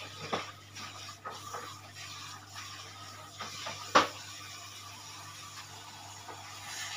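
Kitchen utensils and dishes being handled, with scattered light clicks and knocks and one sharper knock about four seconds in, over a faint steady low hum.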